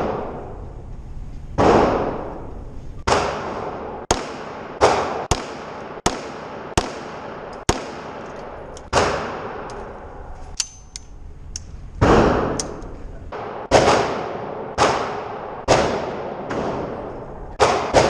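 Pistol shots fired one at a time at an indoor shooting range, about sixteen in all at an uneven pace with a gap of a few seconds near the middle. Each shot is sharp and trails off in echo.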